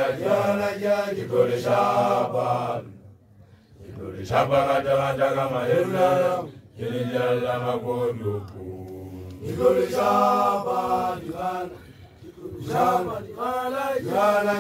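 Male voice chanting on held notes in phrases of two to three seconds, with short breaks between: a Basotho initiates' chant.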